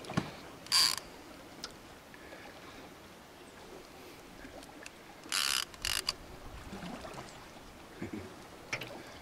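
Spinning reel's drag giving line in three short buzzing bursts, about a second in and twice around five to six seconds in, as a hooked fish, here a red-tail catfish, pulls hard against the bent rod.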